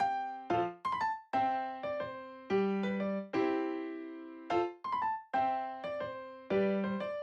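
Background music: a light electric piano or keyboard tune, notes and chords struck and left to fade in a repeating phrase.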